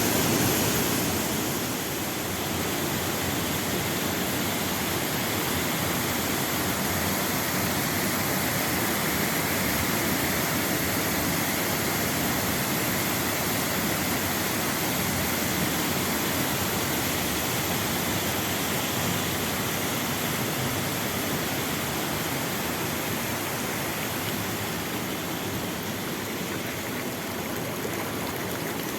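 Waterfall water rushing steadily as a loud, even roar of falling water.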